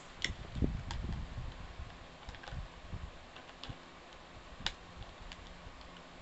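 Scattered sharp clicks and light knocks, a few knocks in the first second and then single ticks every second or so, from hand-tightening the mounting bolt of an eagle eye LED light on a scooter.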